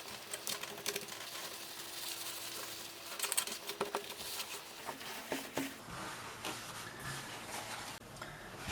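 Faint handling sounds from wiping a smashed iPad glass screen with a dry cloth: scattered light taps and clicks with soft rubbing.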